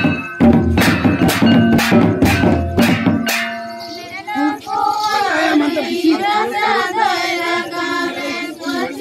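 Folk drums beating about three strokes a second, stopping about three seconds in; then a group of women singing a Baha dance song without the drums.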